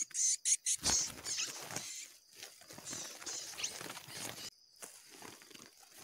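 Rustling and scrabbling from a burlap sack of live caught wild birds, with a few sharp clicks in the first second and a couple of thin high squeaks.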